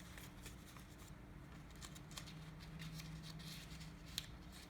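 Faint rustling and small ticks of folded origami paper being handled, over a steady low room hum, with one sharper click about four seconds in.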